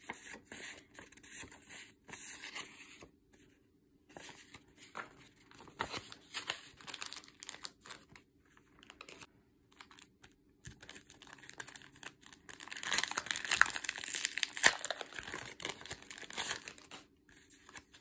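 Paper and plastic packets rustling and crinkling as they are handled and shuffled by hand, in short scattered bursts. The sound grows denser and louder for a few seconds past the middle.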